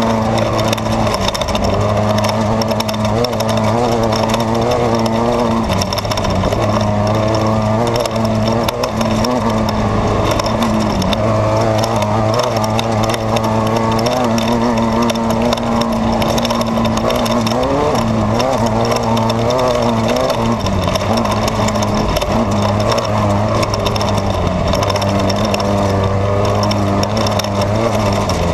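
Off-road desert race car's engine running hard at a fairly steady speed, heard from inside the car, with a constant clatter of the chassis and road noise. The engine note dips briefly a couple of times, about halfway through and again a few seconds later.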